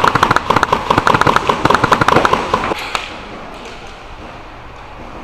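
BB guns firing in rapid bursts, many sharp shots a second, stopping about three seconds in.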